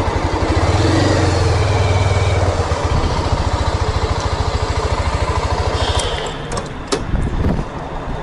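Motorcycle engine running as the bike is ridden slowly, its note rising briefly about half a second in and easing off by three seconds in. The engine sound drops away about six seconds in, and a single knock follows about a second later.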